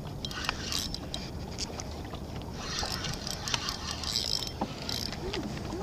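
Penn spinning reel being cranked to retrieve line after a cast: gear noise with scattered clicks in uneven spells.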